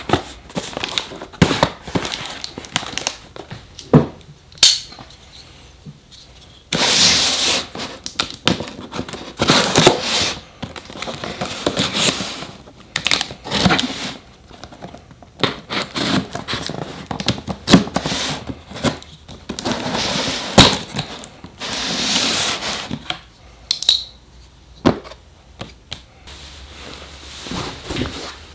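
Cardboard shipping box being opened by hand: packing tape cut with scissors and torn away, and cardboard flaps scraping and crinkling, in several tearing stretches of a second or two between many sharp taps and knocks from handling the box.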